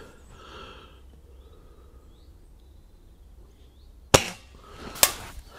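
Diana 240 break-barrel spring-piston air rifle firing once, a single sharp crack about four seconds in, followed under a second later by a second sharp knock.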